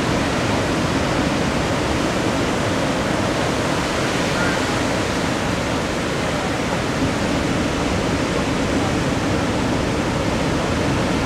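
Ocean surf breaking, heard as a steady, even rush of whitewater.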